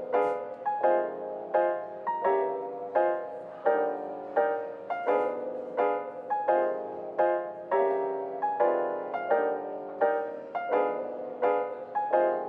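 Background piano music: single notes and chords struck at an even pace, about one and a half a second, each ringing and fading.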